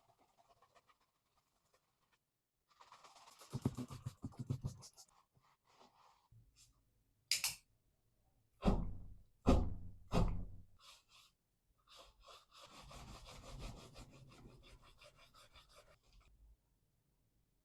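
A brush scrubbing a shoe in quick back-and-forth strokes, twice, with a few loud knocks in between.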